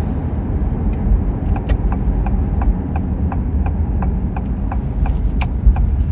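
Car engine and road rumble heard from inside the cabin, with the turn signal ticking steadily about three clicks a second from about a second in.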